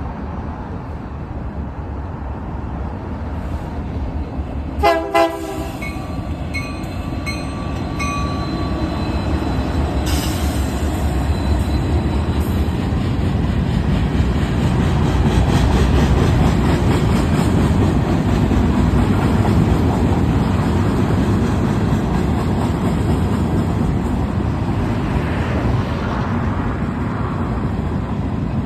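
Union Pacific EMD SD70M diesel locomotives sound two short horn blasts about five seconds in. The train then rolls past with a steady diesel rumble and the clatter of wheels on the rails, growing louder toward the middle.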